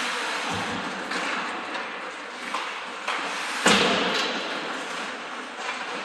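Ice hockey play in an indoor rink: a steady rush of skates on the ice, with a dull thud about half a second in and a loud sharp bang a little past halfway, such as a puck or player hitting the boards.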